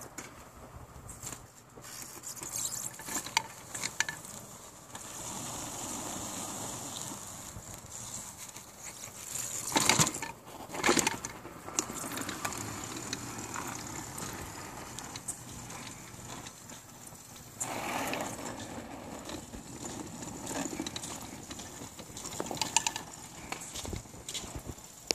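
Homemade remote-controlled four-wheel-drive robot driving on concrete: motor and tyre noise coming and going, with scattered clicks and two loud knocks about ten seconds in.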